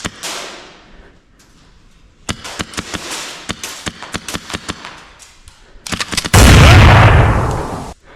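Airsoft MK18 rifle with a Wolverine Inferno engine running on 33 g CO2, firing. A string of sharp shots comes at about five a second, then a long, loud continuous burst cuts off suddenly near the end.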